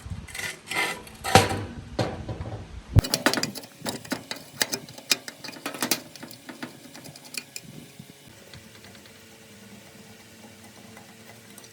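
Small mechanical work sounds: a few scraping swishes, then, after an abrupt change about three seconds in, a run of quick light clicks and taps that thin out over several seconds.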